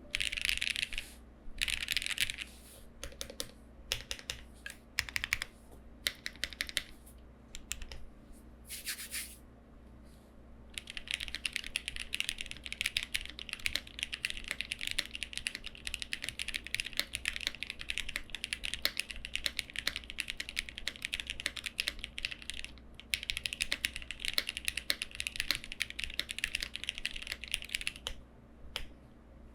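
Typing on a foamless Lucky65 v2 mechanical keyboard with Milky Yellow linear switches and GJ Japan keycaps: short separate bursts of keystrokes at first, then fast continuous typing for most of the rest, with two brief pauses.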